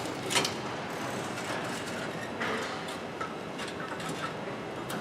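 Old lower control arm being worked out of the suspension: a sharp metal knock near the start, then faint scraping and light ticks over a steady hiss.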